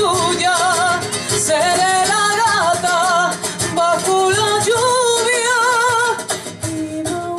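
A woman singing a ballad into a microphone over instrumental accompaniment, amplified through PA loudspeakers. She holds long notes with a wide vibrato.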